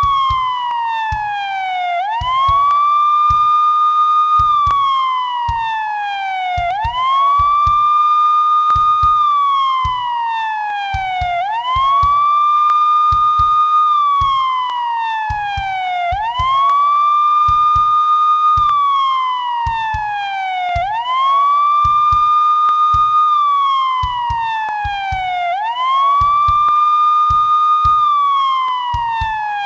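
Police siren sounding a wail: the tone rises quickly, holds high for about two seconds, then slides down slowly, repeating about every four and a half seconds, six times over.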